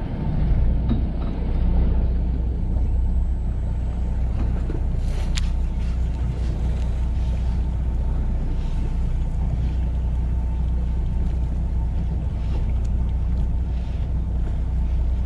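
Fishing boat's engine running with a steady low hum, under a wash of water and wind noise. There is a single sharp click about five seconds in.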